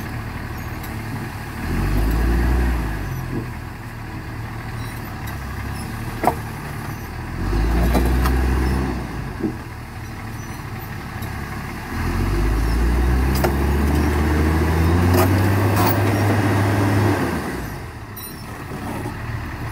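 XCMG GR1803BR motor grader's diesel engine idling, then revving hard under load in three surges, the last and longest rising and then holding, as the bogged machine strains to pull out of the mud. A couple of sharp knocks fall between the surges.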